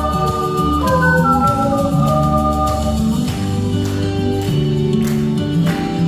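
Ocarinas playing a melody of held, smooth notes over a backing track with a bass line and light percussion.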